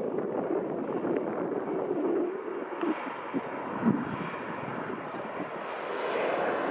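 Airliner engines heard at an airport, a steady engine noise with a few dull buffets of wind on the microphone about halfway through.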